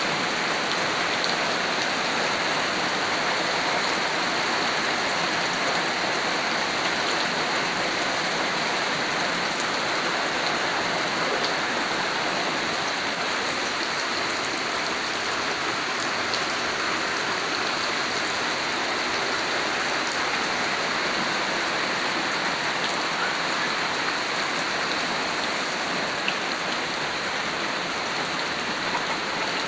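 Rain pouring down steadily, a dense even hiss of drops hitting the ground.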